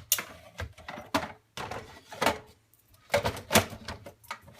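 Plastic knocks, clicks and scrapes of a removable part being fitted back into a Saeco Incanto Classic espresso machine, in several separate bumps.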